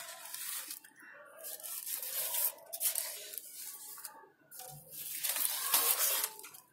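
Thin paper of handmade kites rustling in irregular bursts as the kites are handled and held up.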